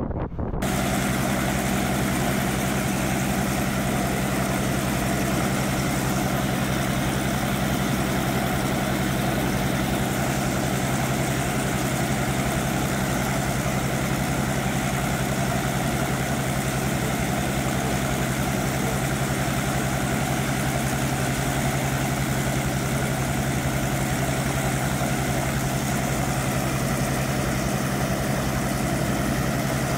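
An engine running steadily: a constant, unchanging drone with two steady low hums beneath it, starting abruptly about half a second in.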